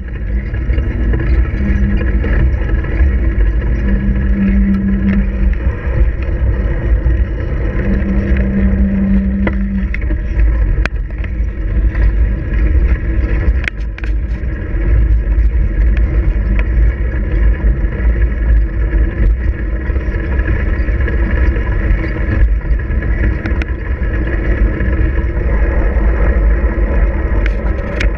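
Wind and road vibration on a handlebar-mounted GoPro while cycling over pavement: a loud, steady low rumble with occasional sharp clicks and rattles. A low hum comes and goes three times in the first ten seconds.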